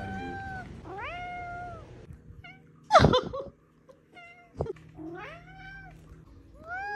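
Domestic tabby cat meowing: a string of separate drawn-out meows, each rising then easing down in pitch. The loudest is a short, sharp cry about three seconds in, followed by a brief click.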